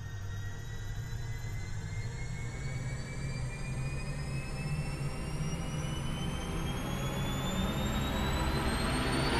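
Sound effect of a spacecraft taking off: a low engine rumble that swells steadily, with a high whine rising in pitch throughout.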